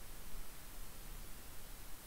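Faint steady hiss of microphone background noise: room tone, with no distinct sound.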